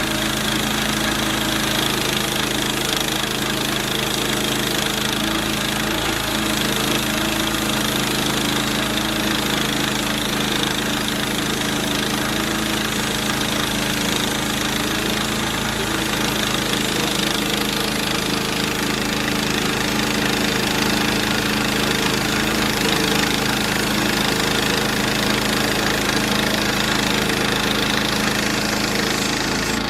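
Small gasoline engine of a Harbor Freight (Central Machinery) band sawmill running steadily while the mill cuts a log of hard, dried mesquite; the sound changes abruptly just before the end.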